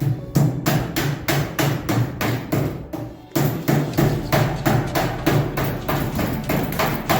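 Background music with a steady, driving percussive beat of about four hits a second over a pulsing bass note, pausing briefly about three seconds in before picking up again.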